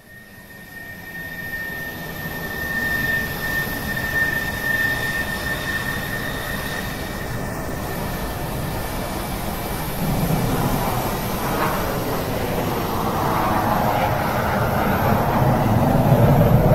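Jet airliner's engines at high power: a steady high whine that fades about halfway, under a broad roar that builds and is loudest near the end.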